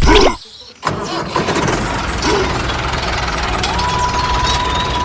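Small motor of a DIY mini tractor running steadily after a short break about half a second in, with a steady high whine joining in near the end.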